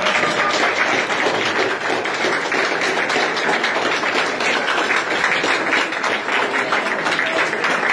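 A small crowd applauding: many hands clapping together, loud and steady.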